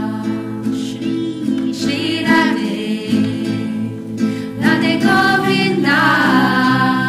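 Group of voices singing a devotional chant, accompanied by acoustic guitar strumming.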